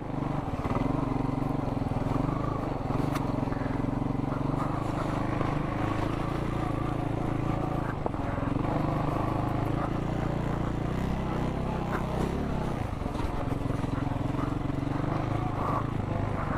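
Off-road motorcycle engine running steadily under way on a dirt trail, its note changing briefly about two-thirds of the way through.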